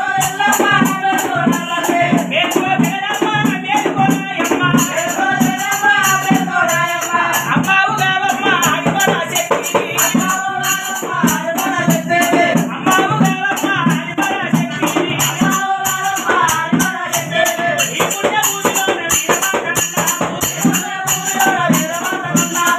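Male folk singing over a large drum beaten in a steady rhythm, with a constant fast jingling rattle.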